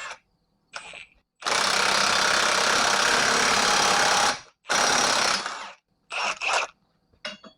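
Impact wrench hammering for about three seconds, then a second burst of about a second and two quick blips, running a ball joint press screw down to push a new wheel stud into a rear axle flange.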